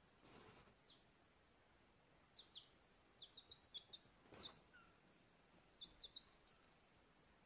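Baby chick peeping: short, high cheeps that fall slightly in pitch, one alone and then quick runs of several. There are a couple of soft rustles.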